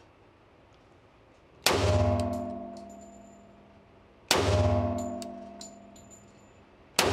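Three gunshots from a Springfield Armory 1911 pistol firing .45 ACP 230-grain full metal jacket rounds, about two and a half seconds apart, the third right at the end. Each shot is followed by a long ringing decay in the indoor range.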